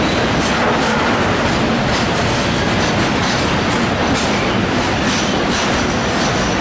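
Intermodal freight train of pocket wagons carrying lorry semi-trailers rolling past close by: a steady loud rumble of wheels on rail, with clacks over the rail joints and a faint high wheel squeal.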